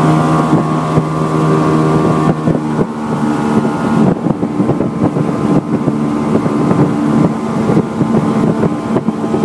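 Small motorboat's engine running steadily while under way, with wind buffeting the microphone. About two seconds in the engine note changes and the gusty, choppy wind noise grows.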